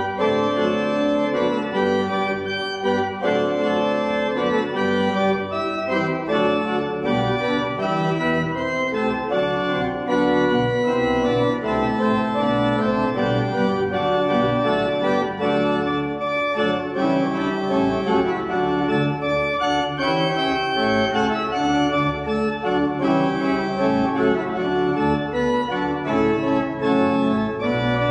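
Church pipe organ playing the postlude that closes the service: full, sustained chords that change every second or so.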